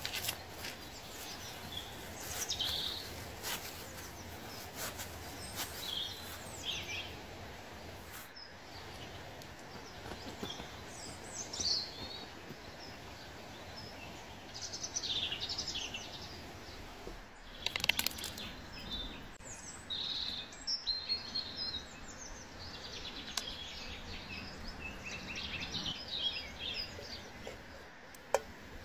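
Wild birds chirping and singing in woodland over a steady outdoor hiss, with a few sharp clicks or knocks in between, the loudest about 18 seconds in.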